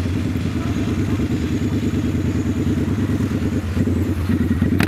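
Motorcycle engine running at a low idle, a steady even pulsing, with a sharp click near the end.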